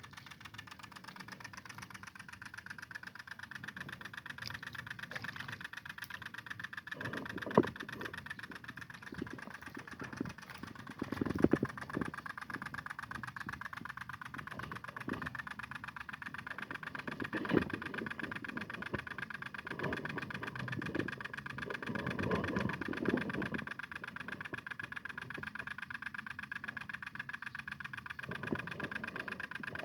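Two-stroke engine of a G1000 mini tiller running steadily under tilling work. Louder knocks and thuds come through now and then, about four or five times.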